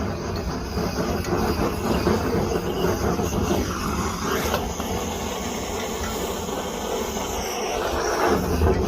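Gas torch burning with a steady roaring hiss, heating glue so that it runs more liquid for sealing a submersible pump.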